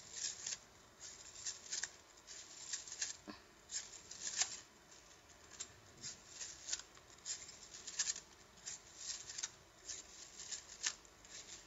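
Quiet handling of a plastic rainbow slinky: its coils click and rustle against each other in short, irregular crackly bursts, several times a second at times.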